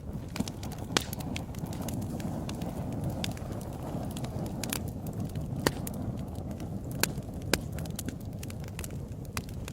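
Fireplace fire crackling: a steady low rush of burning flames with scattered sharp pops and snaps. The loudest pops come about one second in and again around five and a half to seven and a half seconds in.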